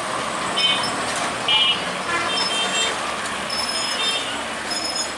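Broad-gauge passenger train running away on curved track: a steady rumble of wheels on rails, with several short high-pitched squeals, the loudest about half a second and a second and a half in.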